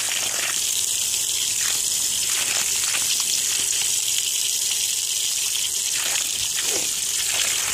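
Tap water running steadily, a continuous gushing hiss as a phone is rinsed under it.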